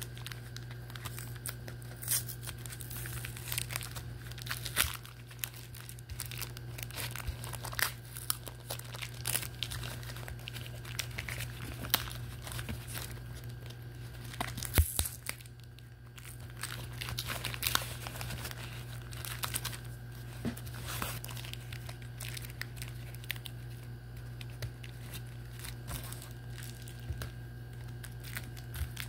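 Clear packing tape being picked at and peeled off a cardboard mailer, with irregular crackling, crinkling and tearing. A steady low hum runs underneath.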